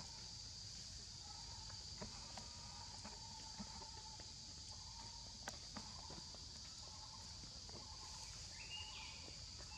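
Steady high-pitched chorus of insects, with a fainter wavering hum beneath it and scattered soft clicks and rustles in dry leaf litter as small monkeys move and eat.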